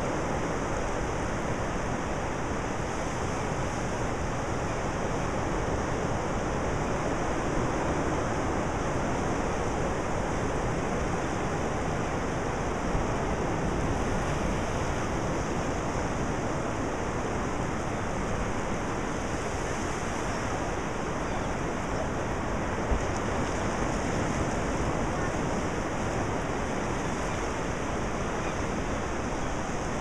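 Ocean surf: small waves breaking and washing up a flat sandy beach, heard as a steady, even rush of water.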